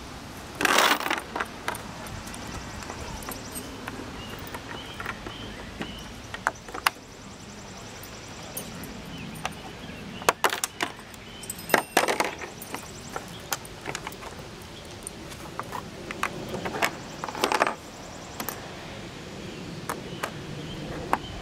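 Irregular sharp clicks and knocks of hand assembly: small metal hardware and an Allen wrench clinking while hard plastic playset roof panels knock together, the loudest clatter about a second in and a few more near the middle.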